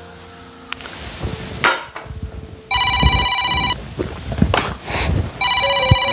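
Phone ringing with an electronic ringtone: two rings of about a second each, the first about three seconds in and the second near the end.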